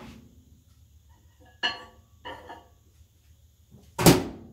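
Kitchen handling sounds as a glass bowl of melted butter is fetched from the microwave: two light knocks and clinks, then a sharper, louder knock about four seconds in.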